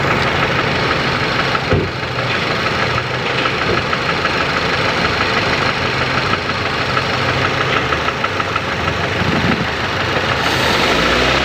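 Engine running rough with a regular knocking tick, one of its cylinders (number 1) not firing: a misfire that makes the engine knock and jerk.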